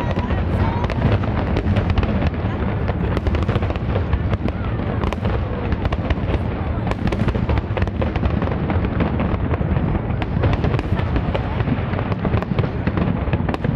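An aerial fireworks display with many shells bursting in quick succession: a rapid, unbroken run of bangs and crackles.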